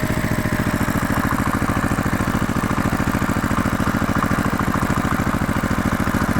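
An engine idling with a steady, fast chugging rhythm.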